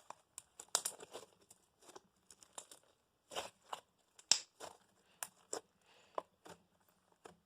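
Hands kneading and stretching a stiff slime to mix glitter in, giving faint, irregular small crackles and clicks.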